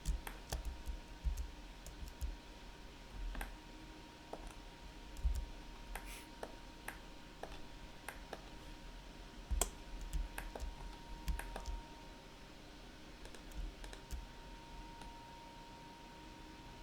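Irregular clicks of a computer mouse and keyboard at a desk, sometimes several in quick succession, growing sparse near the end, over a faint steady electrical tone.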